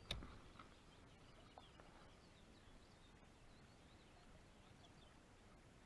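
Near silence with faint small birds chirping high and thin, and a single short click right at the start.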